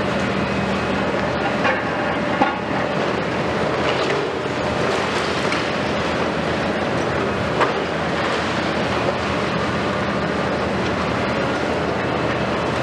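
Long-reach demolition excavators at work: a steady diesel engine drone under the clatter of broken concrete and debris falling from the building. There are two or three sharp knocks from the demolition.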